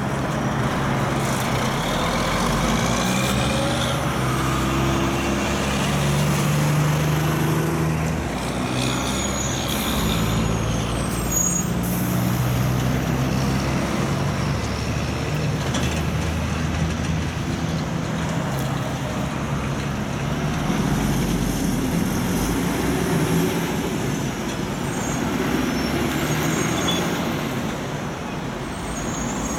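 Heavy diesel logging trucks driving past on the road, their engine notes repeatedly rising and dropping as they pull away and change gear, over steady traffic noise.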